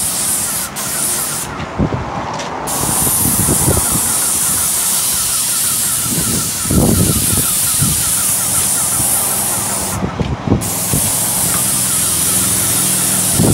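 Airless paint spray gun hissing steadily as it sprays paint, the trigger let off for about a second near the start and again briefly about ten seconds in, with a fast even ticking beneath the hiss.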